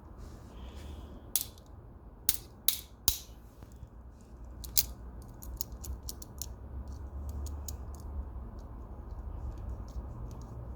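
Sharp metal clicks and snaps of a folding multitool's parts being handled and fitted back together by hand: a few loud clicks in the first five seconds, then many fainter ticks, over a low steady hum.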